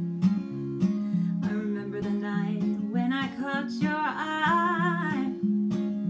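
Acoustic guitar strummed in a steady rhythm. A woman's voice comes in singing over it about a second and a half in.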